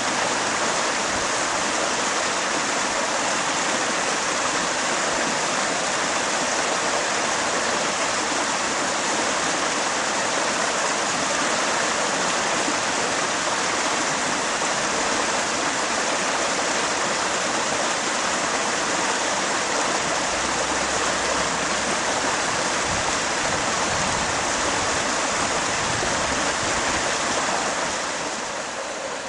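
River water flowing steadily, a continuous rushing noise, a little quieter near the end.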